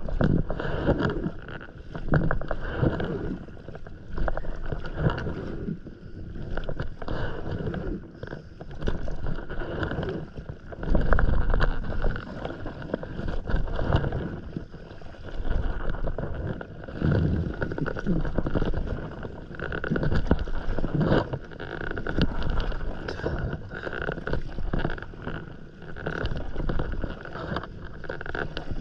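Stand-up paddleboard being paddled on calm sea: paddle strokes pulling through the water and water washing past the board, swelling with each stroke every two to three seconds.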